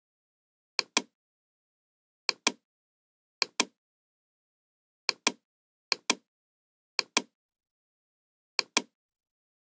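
Computer mouse clicks: seven pairs of sharp clicks, the two in each pair about a fifth of a second apart, at uneven gaps of one to two seconds, with dead silence between them.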